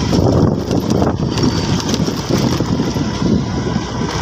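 Motorbike riding along with its engine running, under uneven wind rushing over the microphone.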